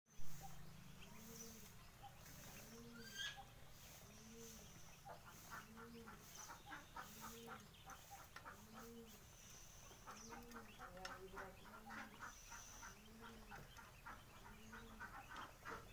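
Muscovy duck hen giving soft, low clucking calls, evenly repeated a little more than once a second, while her ducklings peck at food, their bills making quick faint clicks from about five seconds in. A single high peep near the start.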